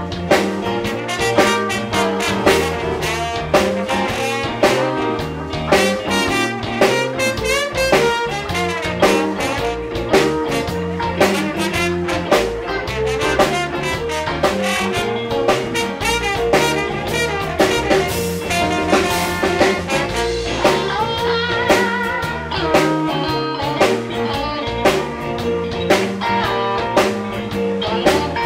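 Live blues jam band playing, with a drum kit keeping a steady beat under guitar and other instruments.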